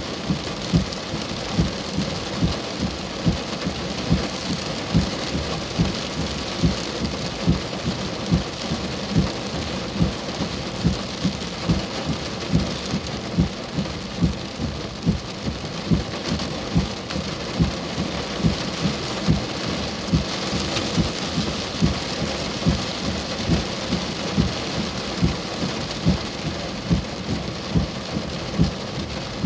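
Steady heavy rain falling, with a regular low thud about one and a half times a second.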